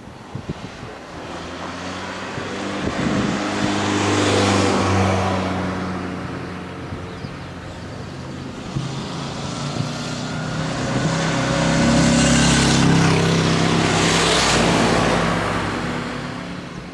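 Jet airliner's engines droning as the aircraft lands and rolls out on the runway, swelling loud about four seconds in, easing, then swelling louder again for several seconds before fading.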